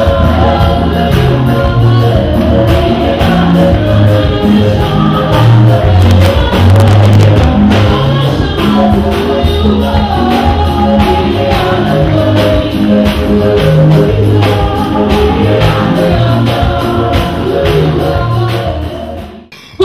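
Gospel music with singing over a steady beat and a stepping bass line. It stops abruptly near the end.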